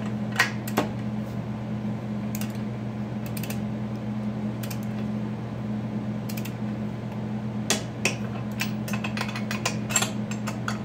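Socket ratchet and torque wrench tightening bolts with nylock nuts: scattered metallic clicks and clinks, thickest in a quick run near the end, over a steady low hum.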